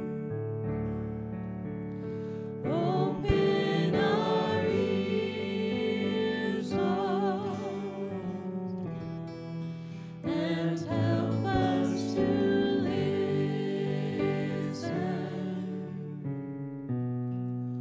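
Worship song: a singing voice with vibrato over sustained instrumental chords.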